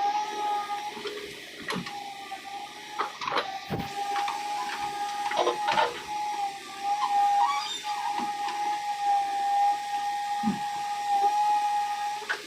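A small electric motor whirring at a steady pitch, with scattered clicks and knocks.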